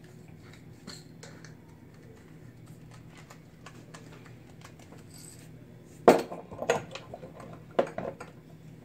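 Faint clicks and rattles as a small glass spice jar is handled, then three loud clinks and knocks of kitchenware about six, seven and eight seconds in.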